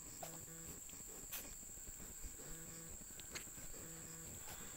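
American Guinea Hog sow grunting softly: short, low grunts in pairs every second or so. A steady high-pitched whine and a couple of faint clicks run under them.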